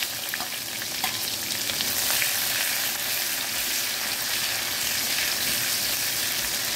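Sliced onion frying in hot mustard oil with whole spices in a kadai, a steady sizzle, as it is stirred with a spatula.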